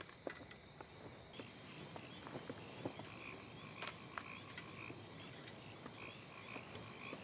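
Faint night ambience of a chirping animal chorus, setting in about a second and a half in, with a few soft taps scattered through it.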